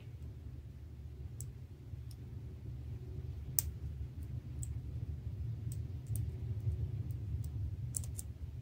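Small, sharp metal clicks at irregular intervals, from a fine steel hook picking at the Minox B camera's damaged shutter blades to pull them out piece by piece. The clicks sit over a steady low hum. The loudest click comes about three and a half seconds in, and several come close together near the end.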